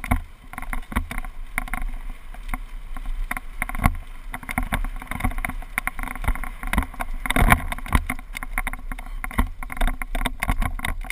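Rapid, irregular clattering of a GoPro HD camera mount rattling on a mountain bike bouncing down a rough trail, over a low rumble of tyres on dirt. The clatter gets heavier about seven seconds in.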